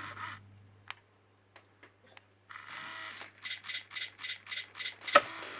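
A parrot chattering in a rapid run of short pulsed sounds, about four a second, starting about halfway through after a few faint clicks. A sharp click comes near the end.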